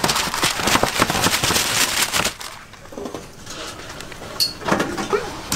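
Hot oil crackling and spattering as food fries. It is dense for about two seconds, then dies down to a quieter sizzle. A brief high tone and some clatter come near the end.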